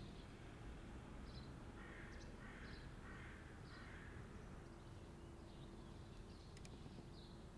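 Faint yard ambience with a bird giving four rough calls in quick succession about two seconds in, and short high chirps from other birds scattered throughout.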